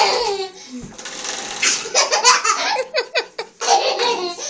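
A toddler laughing and squealing while a plastic juice bottle is run along the ridges of a panel radiator, clattering quickly over them in a rapid run of knocks about two and a half to three and a half seconds in.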